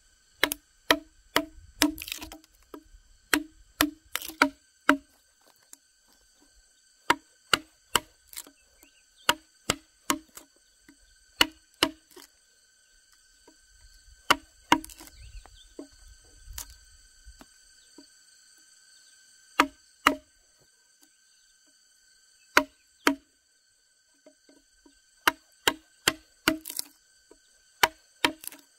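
Wooden mallet striking a chisel into a log, sharp knocks in runs of about two a second with pauses between. Steady insect chirring runs behind.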